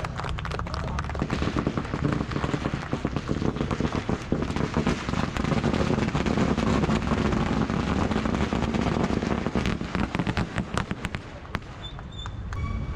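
A long string of firecrackers going off in rapid, continuous crackling for about eleven seconds, then stopping shortly before the end.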